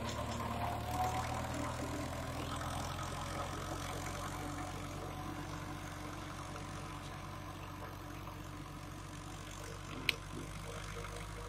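Tractor engine running steadily under load while pulling a disc harrow, slowly growing fainter as it moves away. A single sharp click about ten seconds in.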